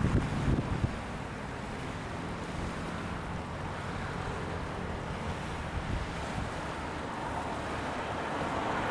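Strong wind buffeting the microphone in the first second, then a steady rush of wind and choppy, wind-driven lake water.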